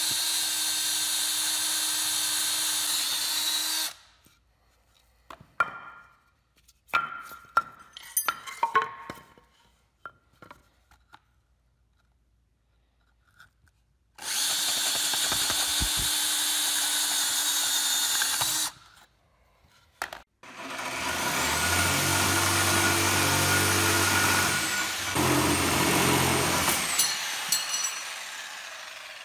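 Cordless drill with a spade bit boring a half-inch axle hole through pine 2x4 blocks, in two steady runs of about four seconds each, with knocks of wood and tool handling between them. From about twenty seconds in, a louder machine with a low hum runs for about seven seconds before fading.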